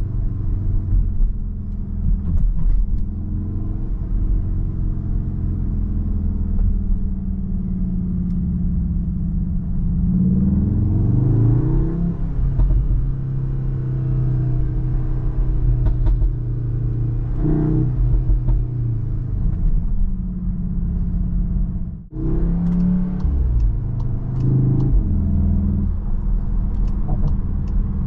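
Cupra Formentor VZ5's turbocharged 2.5-litre five-cylinder engine, heard inside the cabin while driving: it runs steadily, then rises in pitch as the car accelerates, with short breaks in the sound at gear changes, the sharpest about three quarters of the way in.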